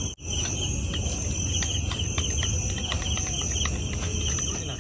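Crickets chirping in a steady, high trill that pulses rapidly, with faint light clicks of a metal spoon stirring a thick marinade in a glass bowl.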